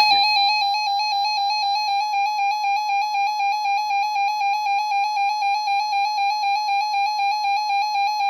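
Emergency Alert System attention tone: a loud, steady, shrill alarm tone with a slight rapid pulsing, about five times a second. It signals that an emergency alert, here a tornado watch, is about to be read.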